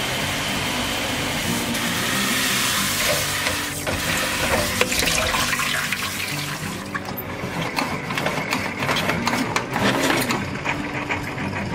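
Tap water running onto lettuce leaves in the plastic basket of a salad spinner in a steel sink. About seven seconds in, the water gives way to the fast rattling clicks of the pull-cord salad spinner being spun.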